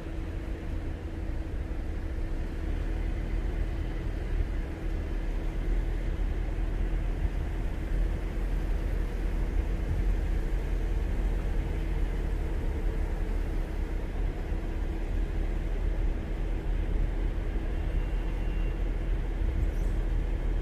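Car driving at a steady speed: a constant low rumble of engine and road noise with a steady hum.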